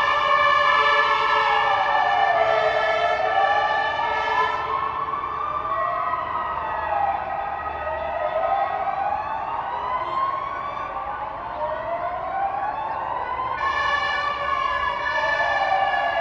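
Fire engine siren wailing, its pitch rising and falling slowly over a few seconds each cycle, with sweeps overlapping one another. A steady, many-toned blare pulses over it near the start and again near the end.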